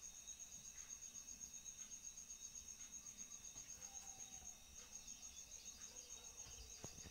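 Near silence with a faint, steady, high-pitched trill of an insect, pulsing rapidly.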